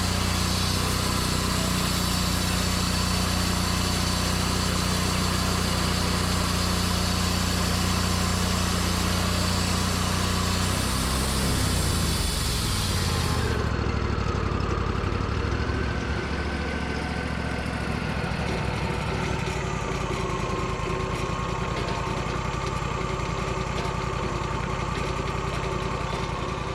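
Petrol engine of a portable band sawmill running steadily at speed, then throttling down, its pitch falling, to a lower steady idle about halfway through.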